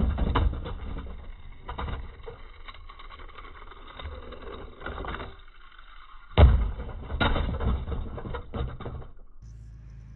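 Die-cast toy cars and plastic Hot Wheels track clattering: irregular clicks and knocks, with a sharp knock about six and a half seconds in followed by a few seconds of rattling. A steady low hum comes in near the end.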